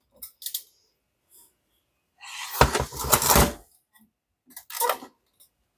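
Handling noises on a workbench: a couple of light clicks, then a clattering, scraping stretch lasting about a second and a half, and a shorter rustle near the end.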